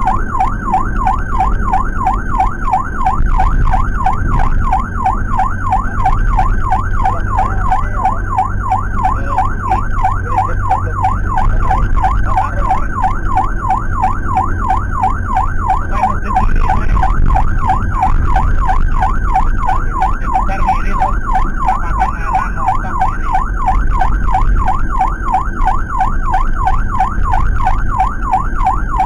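Electronic emergency siren in a fast yelp, its pitch rising and falling rapidly without a break, heard from inside a moving ambulance's cabin over steady engine and road rumble.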